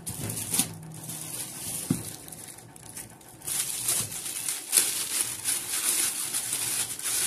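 A few knocks as the cardboard box is handled and a wrapped leather bag is lifted out. Then, from about three and a half seconds in, thin plastic wrapping crinkles continuously as it is pulled off the bag.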